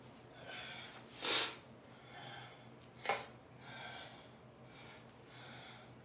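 A person breathing close to the microphone, soft breaths about every second and a half, with a loud sharp sniff about a second in and a shorter sharp sniff or click near three seconds.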